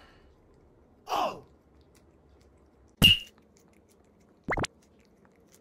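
Three short added sound effects: a sliding tone that falls in pitch about a second in, a sharp pop with a brief high ring about three seconds in, and a quick upward whistle-like sweep near the end.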